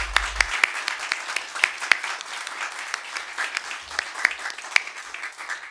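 Small audience applauding, with individual hand claps standing out, gradually growing quieter.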